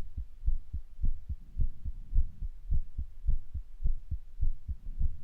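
Human heartbeat recorded close up: paired low thumps, each beat a double thud, repeating steadily at a little under two beats a second, a fast rate.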